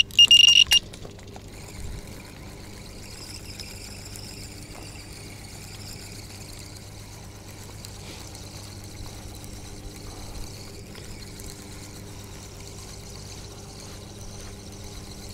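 An electronic bite alarm on a fishing rod beeps rapidly for under a second. Then comes the soft, steady whir of a spinning reel being cranked as a hooked fish is wound in.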